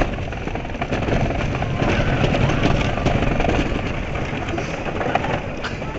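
Wooden roller coaster train rumbling and clattering along its track at speed, with wind rushing over the microphone.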